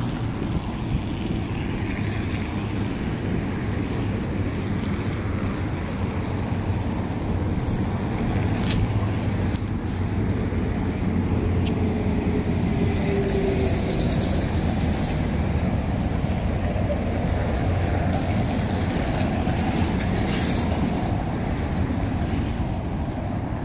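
Steady city street traffic: a continuous low rumble of passing cars and heavier vehicles, with a few short clicks and a brief pitched whine near the middle.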